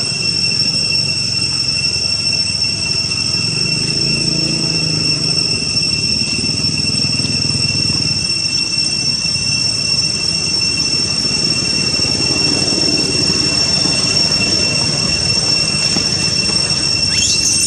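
Steady high-pitched insect drone, holding two even tones over a hiss, with a brief rising squeal near the end.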